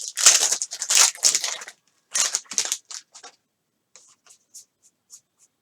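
Trading cards being handled, sliding and scraping against each other as a stack is flipped through. There is a dense run of quick rustling strokes at first, then a few separate swishes, then faint soft ticks near the end.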